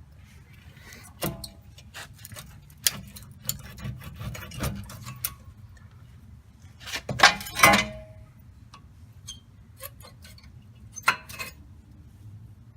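Hand tools and metal brake parts clicking and clinking during brake work, with a louder pair of ringing metal clanks about seven seconds in.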